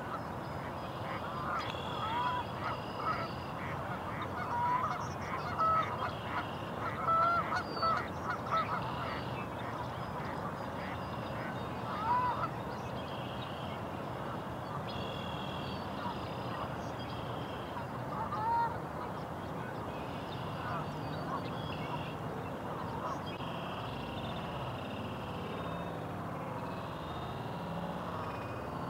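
Geese honking now and then, with a cluster of short honks in the first nine seconds and single honks about 12 and 18 seconds in, over a steady outdoor background.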